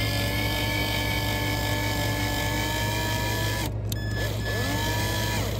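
Cordless drill driving a screw through a metal mounting bracket into the van roof. Its motor whine rises as it spins up and then holds steady for about three and a half seconds. It stops briefly, then comes back as a shorter burst near the end.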